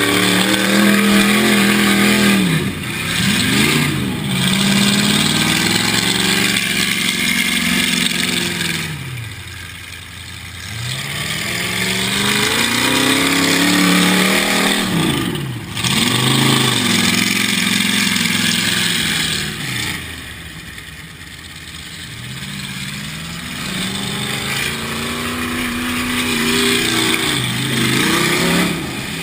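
Demolition derby car's engine heard from inside the cab, revving up and down again and again as the car drives and manoeuvres, easing off to lower revs twice.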